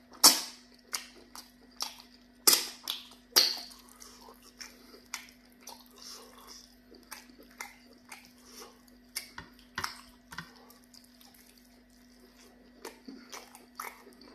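Close-miked eating of pounded yam fufu with vegetable soup by hand: chewing and wet mouth smacks in a run of short sharp clicks, the loudest in the first three and a half seconds, over a faint steady low hum.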